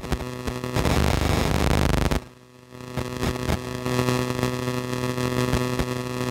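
Steady electrical hum from a faulty audio recording, with a loud burst of static about a second in that lasts about a second, and scattered clicks. This is the audio failure the recording suffers from.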